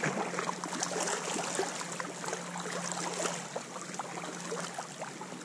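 Sea water washing and trickling around rocks, with scattered small clicks and a steady low hum underneath.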